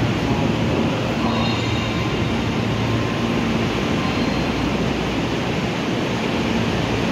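Kobe Municipal Subway 6000-series train standing at the platform with its doors open: the steady whir of the stopped train, with a low hum that fades in and out.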